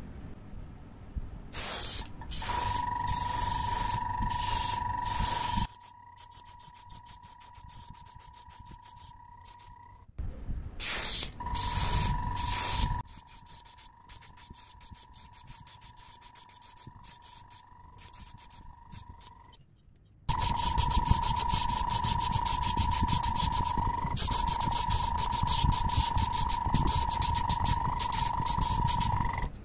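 H&L airbrush spraying two-component PU epoxy primer in three long bursts of air hiss with a steady high whine. The bursts come about two seconds in, around ten seconds, and from about twenty seconds to near the end, with quieter hissing between them.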